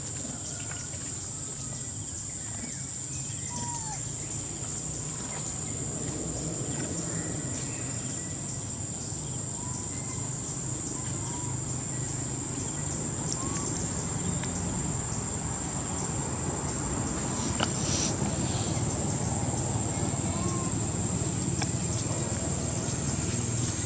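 A steady high-pitched insect drone over a low background hiss, with short faint chirps every few seconds and one sharp click late on.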